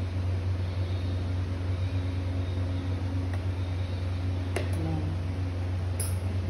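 Steady low hum, with a couple of faint clicks about four and a half and six seconds in.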